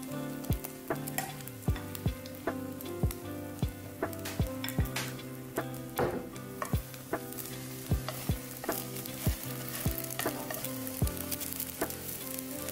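Beaten egg sizzling in a hot frying pan while a spatula scrapes and sets the minced pork, zucchini and tomato filling onto the half-set omelette. Background music with a steady beat plays over it.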